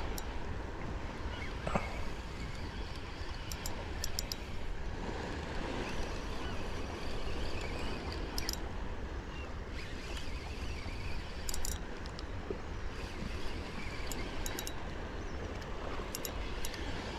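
Wind rumbling on the microphone over a steady wash of sea water, with a few short high ticks now and then.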